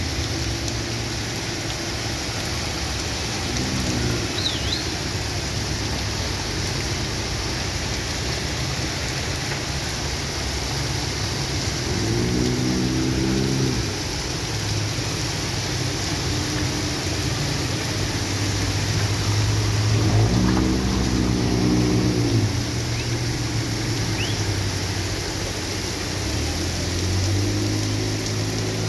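Heavy rain pouring steadily onto a flooded street, a constant hiss. Several cars drive past through the water, their engines humming; the loudest pass comes about twenty seconds in.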